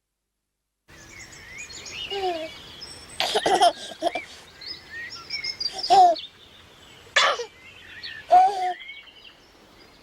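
Birds chirping and singing, starting after about a second of silence. Four short, louder sounds rise above them along the way.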